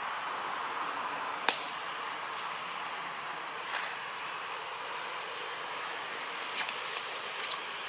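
Forest ambience with a steady high-pitched insect drone, broken by one sharp click about a second and a half in and a few fainter ticks later.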